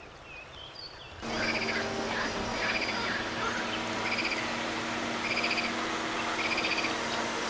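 Frogs calling from a pond: short, rattling croaks repeated about once a second, over a steady low hum, starting abruptly about a second in.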